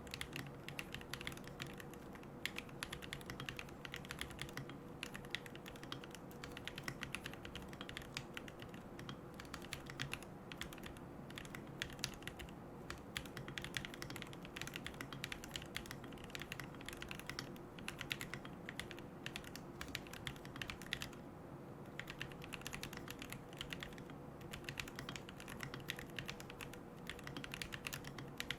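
Continuous typing on a mechanical keyboard with Gateron Moon Landing linear switches, carbon plate and no case foam: a dense, irregular stream of key clacks.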